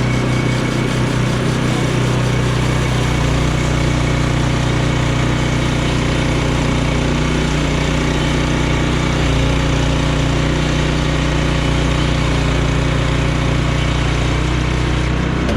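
Portable sawmill's gasoline engine running at a steady speed.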